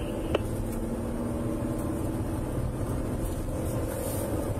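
Steady engine and road rumble inside a moving patrol car's cabin, with a single short click shortly after the start.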